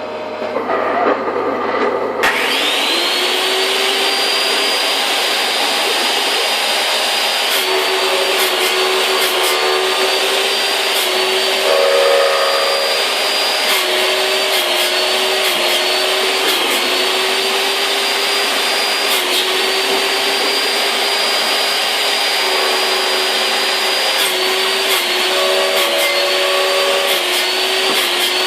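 Electric wood-cutting machine switched on about two seconds in: its motor spins up with a rising whine and then runs at high speed. Its pitch dips briefly several times as it takes load, with a few clicks along the way.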